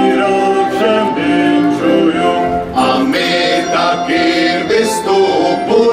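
Men's voices singing a Czech Three Kings (Epiphany) carol together in sustained notes, with a folk band with fiddles accompanying.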